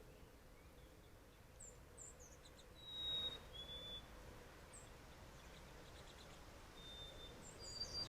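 Wild birds calling: short, high chirps and several thin, steady whistles, with a brief rush of noise about three seconds in.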